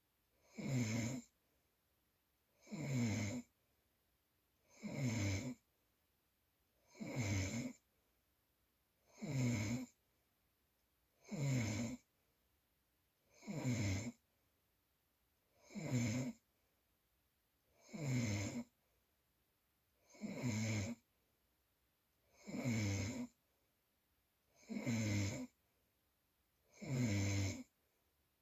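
Snoring: a short, rasping snore on each breath, about one every two seconds and very regular, with silence between the snores.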